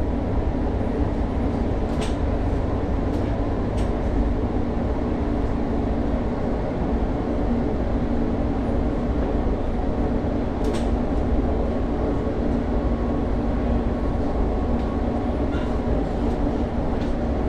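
Running noise of a London Overground Class 710 electric train at speed, heard inside the carriage: a steady low rumble and hum from wheels on rail and traction, with a few brief clicks.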